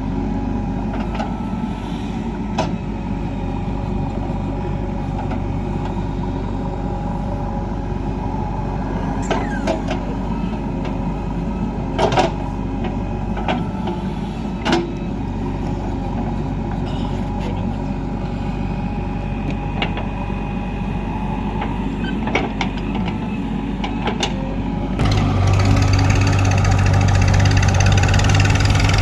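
Heavy diesel engines running steadily at a mud-loading site, with a few sharp metallic clanks. About 25 s in, an engine gets louder as it is revved up.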